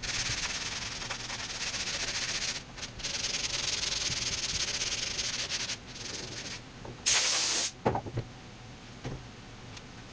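Sandpaper rubbed by hand, palm flat with no block, over body filler that has not fully set and gums the paper; long rasping strokes for about six seconds, then quieter. A short, loud hiss about seven seconds in, followed by a knock.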